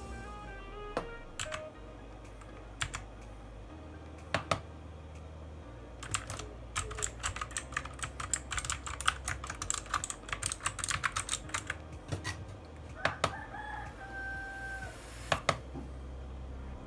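Key presses on an AULA F2058 mechanical keyboard: scattered single clacks, then a fast run of rapid key presses for about six seconds in the middle, then a few more single presses. This is the keyboard being worked while its RGB lighting modes are tested one by one.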